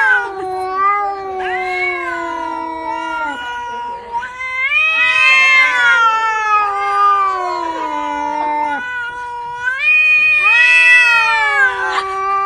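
Cats yowling at each other in a standoff: long, drawn-out wails a few seconds each that slide down in pitch, three in a row with short breaks between them.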